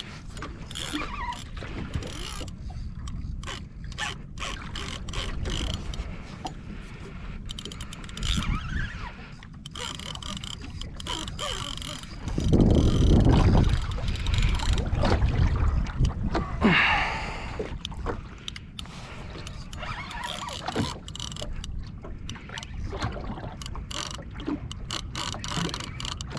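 Fishing reel being wound against the weight of a hooked gummy shark, with many small mechanical clicks. A louder low rushing noise swells for a few seconds about halfway through.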